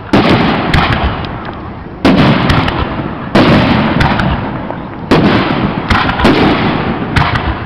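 Aerial firework shells bursting: a loud boom every one to two seconds, each trailing off in a long echo, with lighter pops and crackles in between.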